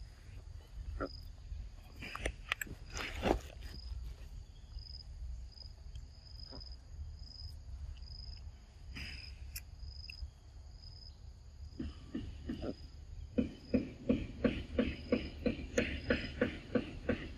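Long-tailed macaque eating a ripe mango: scattered bites early on, then a quick regular run of chewing and smacking, about three a second, through the last few seconds. A thin, high insect chirp repeats steadily underneath.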